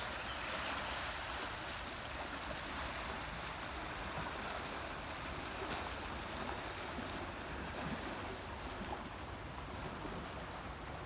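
Steady wash of small waves on a rocky shoreline, with a low rumble of light wind on the microphone.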